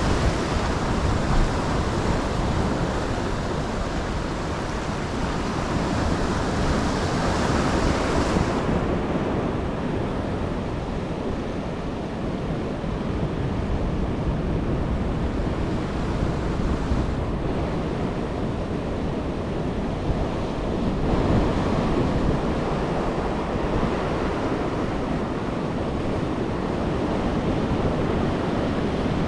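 Ocean surf breaking and washing on a beach, a steady rush of noise with wind buffeting the microphone. The higher hiss drops away about eight seconds in.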